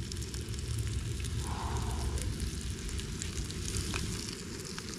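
Trout, onions and mushrooms frying in butter in a small pan on a backpacking canister stove: a steady sizzle with the gas burner's flame running underneath.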